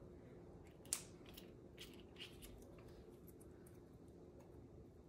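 Faint handling of small paper craft pieces: one small click about a second in, then a few soft ticks and rustles as the pieces are pressed onto the paper and picked up.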